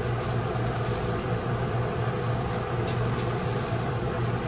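Light, intermittent crinkling of a clear cellophane sleeve being handled and opened, over a steady low hum.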